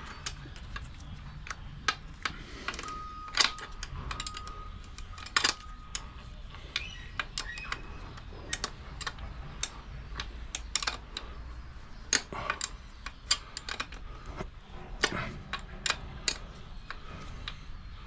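Irregular metallic clicks and taps of a wrench on the chain adjuster lock nuts of a Suzuki V-Strom 1000's swingarm, as the nuts are snugged against the adjusters to lock the chain adjustment.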